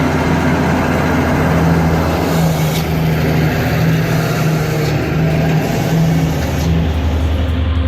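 Diesel logging truck engine running steadily at a constant level, with a higher drone that comes and goes over the low hum.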